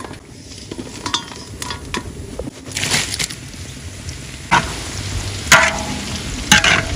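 Banana slices deep-frying in a wok of hot oil, sizzling steadily. In the second half a metal ladle stirs them, scraping against the wok about once a second.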